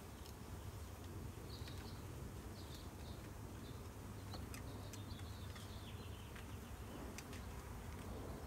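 Feral honeybees buzzing around an open hive box, a steady low hum. A few short high chirps come in the middle, with scattered light clicks.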